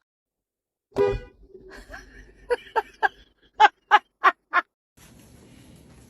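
Handheld air horn: one loud blast about a second in, then quick short toots, three in a row and then four more. A steady hiss follows near the end.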